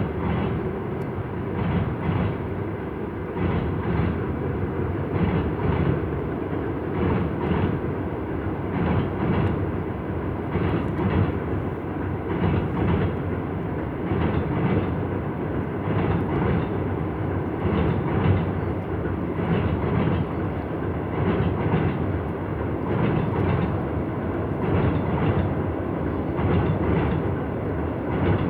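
Freight train wheels clattering over rail joints on a bridge: a steady rolling rumble with a regular run of knocks, about one or two a second.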